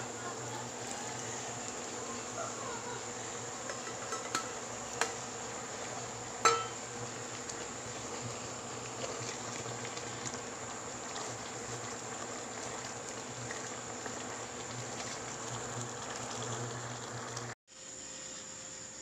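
Teriyaki sauce simmering and bubbling around chicken pieces in a stainless steel pan, under a steady buzzing hum. A few sharp taps come through, the loudest about six and a half seconds in, and the sound cuts out briefly near the end.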